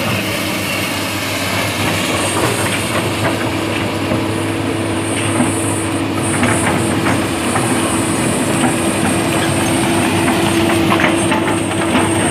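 Komatsu PC200 crawler excavator running, its diesel engine holding a steady drone, with scattered clanks and squeaks from its steel tracks and working parts from about two seconds in.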